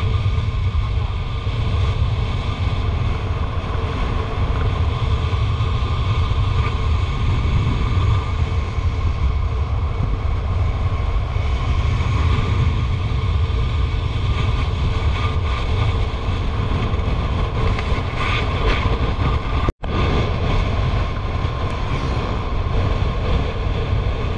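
Wind buffeting the microphone of a motorcycle at highway speed, over a steady drone from the engine and tyres. The sound cuts out for an instant near the end.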